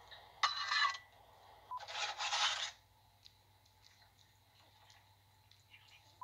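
Two brief scraping rustles as a paper plate of wet cat food is handled and set down, the second longer than the first, followed by faint small ticks while two cats eat from it.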